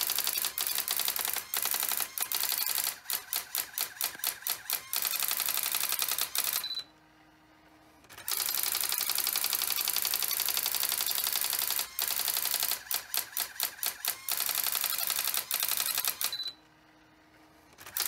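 Electronic daisy-wheel typewriter printing at full speed: a rapid, continuous clatter of character strikes that thins into separate strikes in places. It stops twice for about a second and a half.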